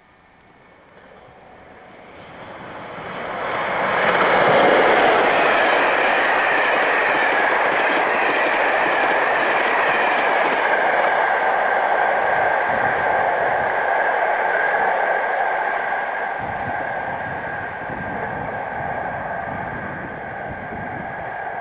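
British Rail Class 47 diesel locomotive hauling passenger coaches past at speed: the sound builds up over a few seconds as it approaches, then a quick run of wheel clicks over the rail joints and junction pointwork as the coaches go by, with a steady high whine underneath, easing off as the train draws away.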